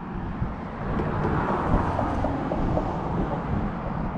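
Wind rumbling on the microphone, with a passing car's road noise swelling up and fading away through the middle.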